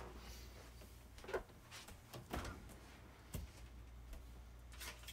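Faint low hum with a few scattered light clicks and knocks: kitchen items and food packages being handled.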